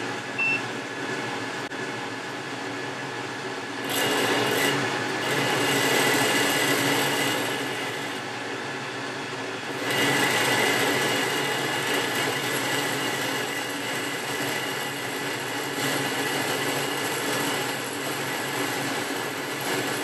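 Boxford lathe running, its carbide insert tool turning down a mild steel bar, with a steady whine under the cutting noise. It gets louder about four seconds in and again at about ten seconds.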